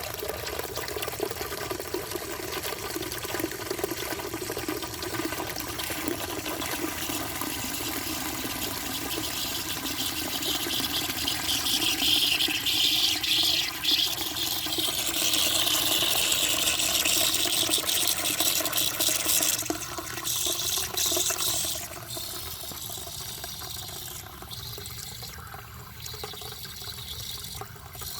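Water running and rushing in a 1952 Adamsez cast-iron toilet cistern under test. It grows louder and brighter about twelve seconds in, then drops back and eases off from about twenty-two seconds.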